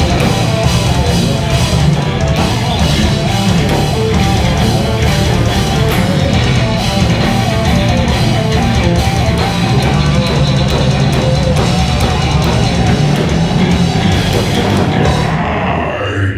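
Heavy metal band playing live through a club PA: distorted electric guitars, bass and a drum kit, loud and dense. The sound thins out in the last second or so as the song winds down.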